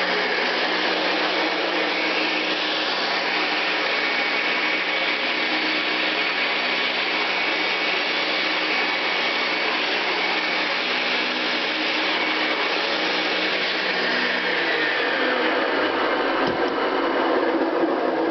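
Mid-1960s Hoover Convertible Model 589 upright vacuum running steadily on its attachment setting, where the converter switches the whole motor into high speed. A steady motor hum with a high whine over the rush of air, the hum dipping a little in pitch near the end.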